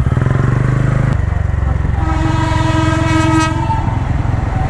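Horn of an approaching train sounding one steady blast of about a second and a half, starting about two seconds in, over a low engine rumble.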